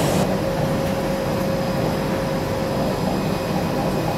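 Steady running rumble of a diesel railbus heard from inside the passenger cabin while it travels along the line. A faint thin whine sits over it and fades out about halfway through.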